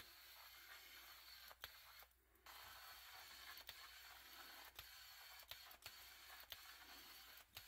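Near silence: a faint steady hiss, broken by a brief dropout about two seconds in and a handful of short clicks.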